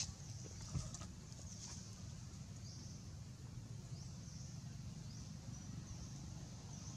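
Faint outdoor background: short high chirps, likely a bird, repeating roughly once a second over a low steady rumble, with a couple of soft taps in the first second.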